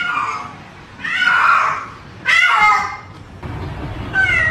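Domestic cat meowing: four long, drawn-out yowls, one after another.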